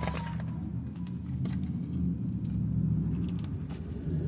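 A car engine idling steadily, a low even rumble, with a few faint clicks over it.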